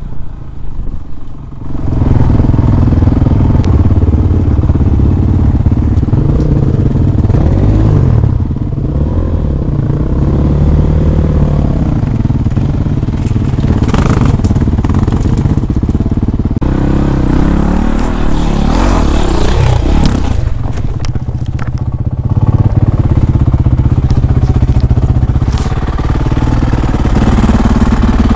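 Dirt bike engine running and revving up and down while climbing over rock, getting louder about two seconds in, with occasional clatter and scraping on the stone.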